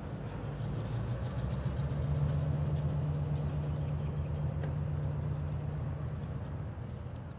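EMD SW900 switcher locomotive's diesel engine running with a low, steady drone, growing louder through the first half and fading toward the end. A bird calls a quick run of short high notes about three and a half seconds in.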